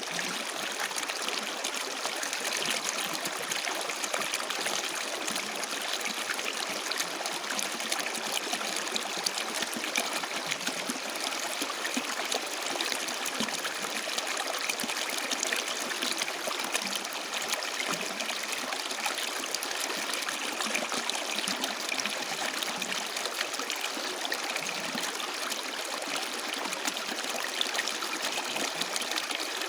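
Water flowing steadily over rocks in a stream, a continuous splashing and trickling.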